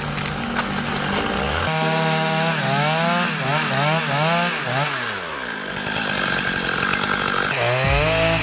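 High-powered chainsaw cutting into a large pine, its engine pitch climbing and dropping again and again as the throttle is worked, with another rev near the end.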